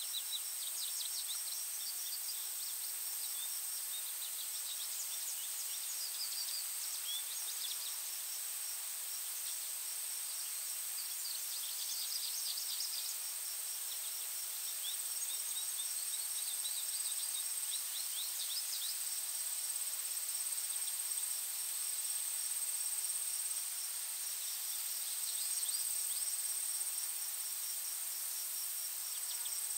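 Forest ambience: insects keep up a steady high-pitched drone and a run of quick, evenly spaced chirps, while small birds sing short bursts of rapid notes several times.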